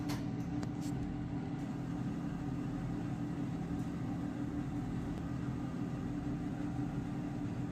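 Steady low background hum, like a fan or air conditioner, with a few light clicks in the first second and one faint click near the middle.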